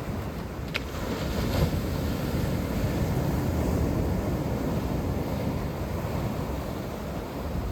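Sea waves washing ashore, one swell building about a second in and easing off, with wind rumbling on the microphone.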